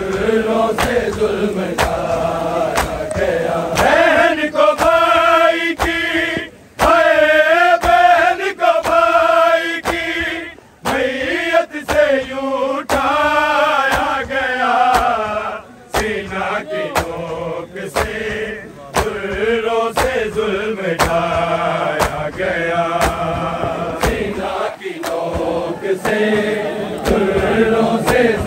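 Men chanting a Muharram noha, with the regular slaps of hands beating on bare chests (matam) keeping time, about one beat a second.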